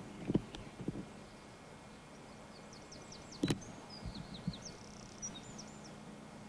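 Knocks from handling a hand-held analogue camcorder, the sharpest about three and a half seconds in, over a steady low hum. In the middle a small bird chirps a quick run of high, sweeping notes.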